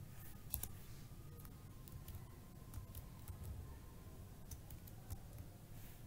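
Faint computer keyboard keystrokes: scattered, irregular clicks, in small clusters, over a low steady hum.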